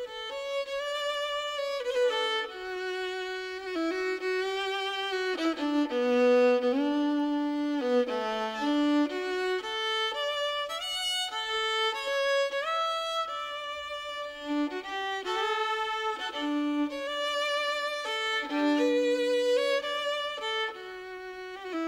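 Background music: a solo violin playing a slow melody with vibrato.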